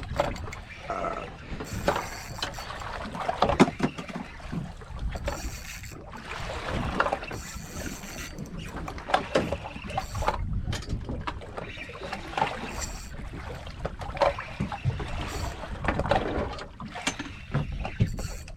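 Water slapping against a small boat's hull, with wind on the microphone and irregular knocks and clatter on the boat.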